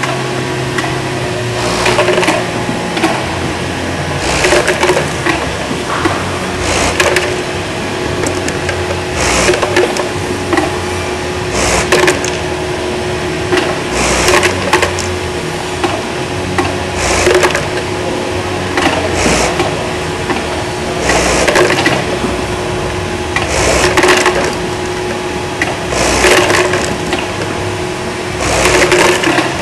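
Elevator hopper parts feeder running, with a steady motor hum and a clatter of parts about every two and a half seconds.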